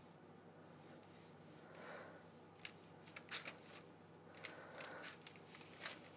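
Faint scraping and a few light ticks as a kitchen knife scores slashes into the top of a raw bread dough on parchment paper.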